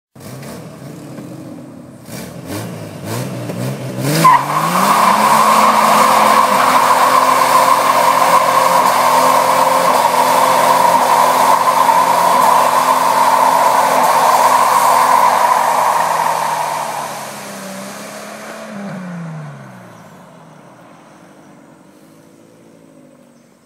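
Jeep Cherokee XJ doing a burnout: the engine idles, revs up over a couple of seconds, then is held at the rev limiter for about twelve seconds while the spinning tyres squeal steadily. About 19 s in the revs fall away and the engine drops back to a faint rumble.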